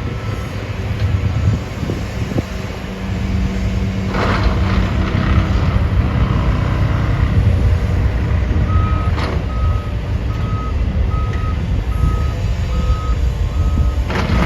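Heavy construction equipment's backup alarm beeping about twice a second from about nine seconds in, over the steady low rumble of engines, with a few sharp knocks.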